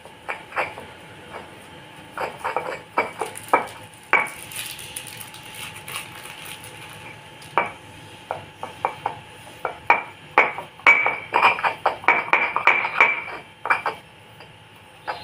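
Pestle knocking and scraping in a mortar while grinding a crumbly fish-bait mix. The knocks are sharp and irregular, coming thick and fast about ten to thirteen seconds in.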